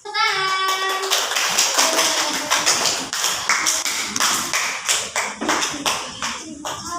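A group clapping rapidly and densely for several seconds, the claps thinning out near the end. A short pitched call comes right at the start.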